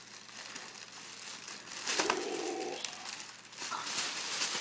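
Plastic bubble wrap crinkling as a toddler's hands squeeze and crush it, in uneven bursts, loudest about two seconds in and again near the end.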